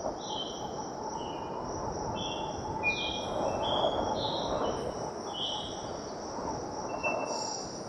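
Outdoor ambience: a steady low rushing noise, with a bird chirping in short high notes at changing pitches and a faint steady high insect-like tone.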